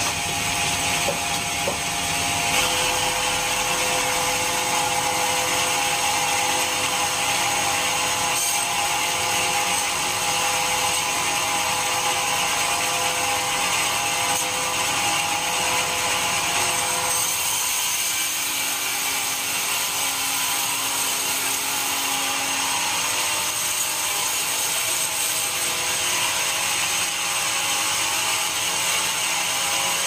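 Band sawmill running, its vertical band blade cutting lengthwise through a dry teak log on the carriage: a steady saw and motor noise with a few held tones, which shifts in tone a little past halfway.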